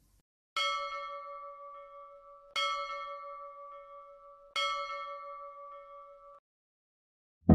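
A bell chime sound effect struck three times, about two seconds apart, each strike ringing out and fading; the last is cut off about six seconds in.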